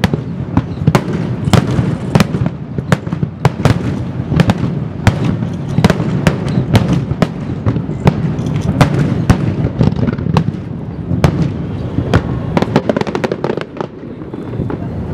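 Finale barrage of aerial firework shells bursting in rapid succession: a dense run of sharp bangs over a continuous low rumble. Near the end the bangs thin out briefly.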